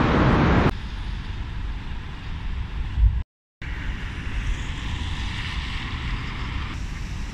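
Outdoor road noise: wind rumbling on the microphone with traffic. It is loud at first, drops suddenly under a second in, and cuts out briefly about three seconds in. Then comes a hiss of tyres on the wet road as a car passes.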